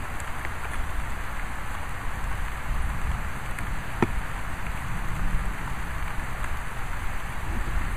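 Steady rain hiss with a low rumble underneath, and a single sharp tick about halfway through.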